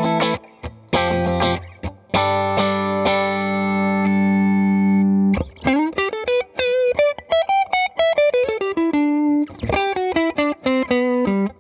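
Electric guitar played through an amp with the Electra MPC-12 compressor module on its second setting: short chord stabs, a chord left ringing for about three seconds, then a quick single-note run that climbs and comes back down, and more short chord stabs near the end. The compressed tone is what the players call pretty sterile.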